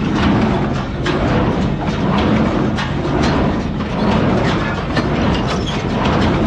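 New Holland 273 square baler running off a tractor's PTO: a steady mechanical clatter that repeats at an even pace, over the drone of the tractor engine.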